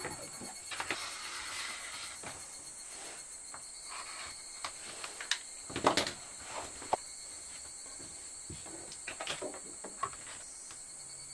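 Chalk and hands rubbing over cotton fabric, then a string of small clicks and knocks as sewing tools and a plastic template are handled and set down on a cutting mat, the loudest about six seconds in. Behind it runs a steady high-pitched chirring of insects.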